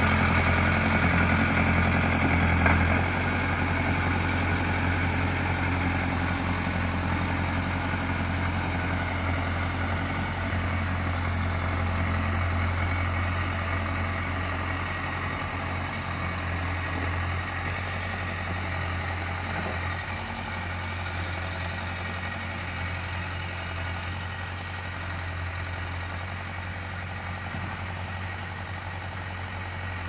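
Engine of a 1960s loader-backhoe tractor running steadily with a low hum, slowly fading as the machine drives away.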